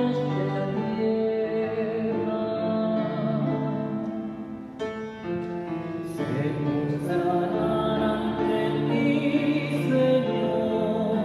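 Church music: a voice singing a psalm refrain over instrumental accompaniment, with held notes that waver in pitch.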